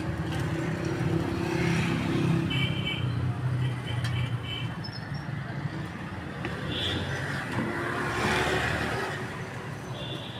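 Street traffic: a motor vehicle's engine running close by, with a louder rush of passing traffic about eight seconds in.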